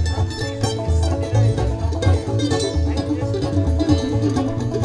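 Bluegrass band playing: banjo and acoustic guitars picking over an upright bass keeping a steady beat.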